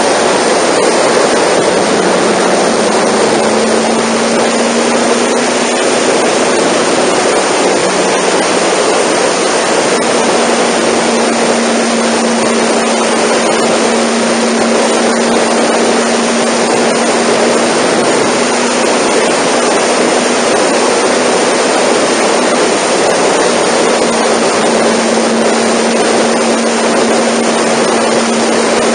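Honda NC700 motorcycle cruising at expressway speed: loud, steady wind rush over the microphone with a steady low hum from its parallel-twin engine underneath.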